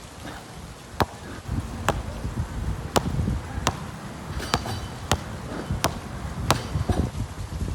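A basketball being dribbled on an outdoor court: about eight sharp bounces at a steady rhythm, a little more than one a second, over a low rumbling background.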